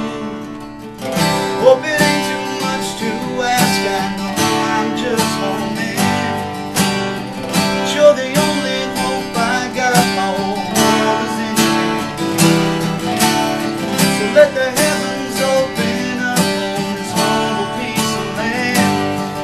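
Country song on strummed acoustic guitar with other instruments keeping a steady beat, in a passage without lyrics.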